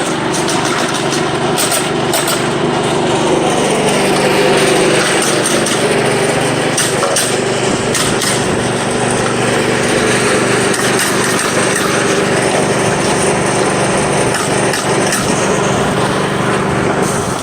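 A small engine running steadily, with scattered sharp clicks or knocks over it.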